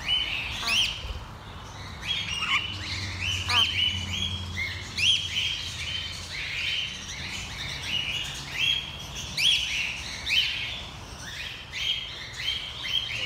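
A flock of small parrots in an aviary, chirping continuously. Short overlapping chirps are broken by sharp rising whistles about once a second.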